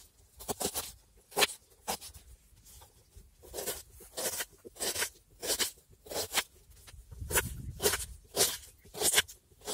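Kitchen knife slicing through an onion onto a wooden cutting board: crisp crunching cuts, each ending in a knock on the board, at an irregular pace of about two a second.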